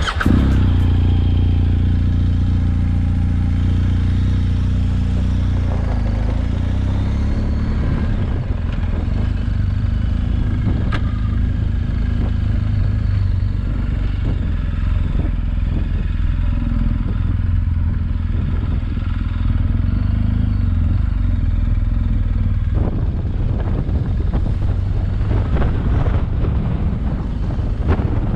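BMW R 1250 GS's boxer-twin engine running steadily under way, with a haze of wind and road noise that grows about three-quarters of the way through.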